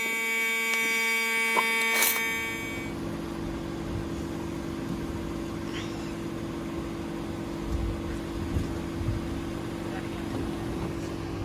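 A car engine idling steadily, a low rumble with a constant hum. It takes over about two seconds in, when a steady ringing tone cuts off abruptly.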